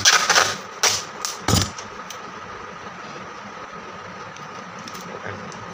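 Green adhesive tape ripped off its roll in a short rasping pull, followed over the next second or so by a few sharp ticks and crackles as the tape is handled. After that only a steady faint whine remains in the background.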